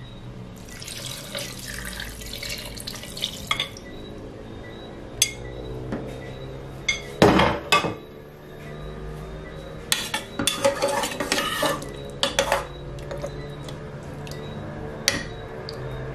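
Liquid poured from a bowl into a metal pressure-cooker pot of browned chicken wings, then a metal spoon and bowl clinking and scraping against the pot as it is stirred. The pouring comes first, and the loudest clanks come about halfway through and again a few seconds later.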